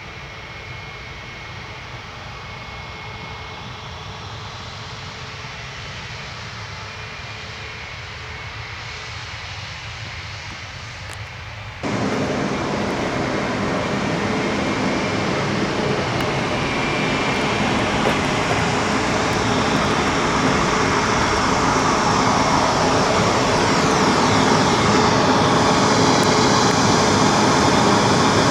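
Embraer E195-E2 airliner landing, the steady rush of its Pratt & Whitney PW1900G geared turbofan engines. It jumps abruptly louder about twelve seconds in and keeps building. Near the end, whining tones fall in pitch as it passes.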